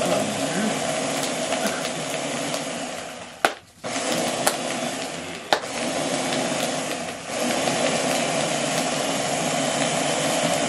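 Ninja pod blender running, crushing ice into a slushy, its motor held on by hand pressure on the pod. It cuts out for a moment about three and a half seconds in, with clicks, then runs again, and dips once more briefly near seven seconds.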